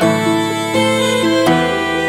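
Fantasy-style instrumental background music: bowed and plucked strings playing held chords that change about every half second.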